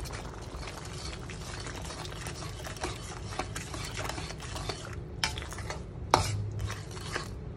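Slotted metal spatula stirring and scraping thick chili sambal around a metal pan, with small clinks of metal on metal and one sharper clink about six seconds in.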